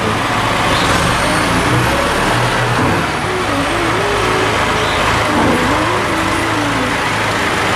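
McCormick tractor's diesel engine running steadily as the tractor drives with its Quicke front loader, with a wavering whine above the engine note.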